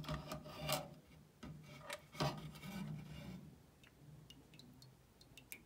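A metal parts basket of soaked carburetor parts is worked and lifted out of a gallon can of Berryman carburetor cleaner: scraping, rubbing and a few knocks of metal against the can. In the second half, small drips tick back into the can.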